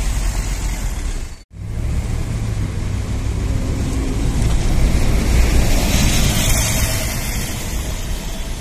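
Mercedes-Benz Citaro city bus engine running as the bus drives past close by, loudest a little past halfway. There is a brief break in the sound about one and a half seconds in.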